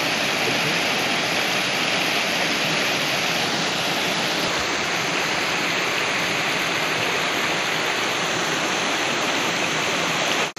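Fast-flowing river rushing over rocks at the bank, a steady roar of water. It cuts out for a moment at the very end.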